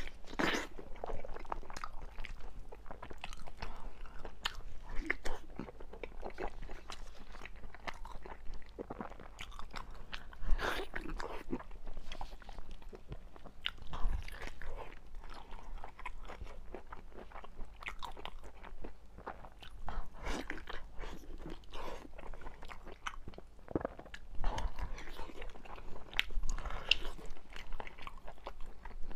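Close-miked biting and chewing of braised beef knee bone (牛窝骨): wet chewing with crunches of the tendon and cartilage and irregular sharp bites, sped up to double speed.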